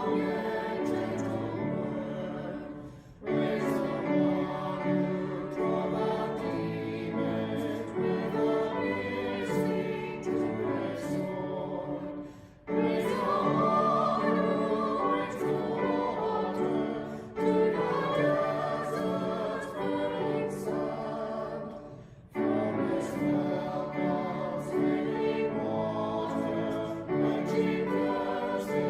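A choir singing a slow sacred piece in long sustained phrases, with brief pauses for breath about 3, 12 and 22 seconds in.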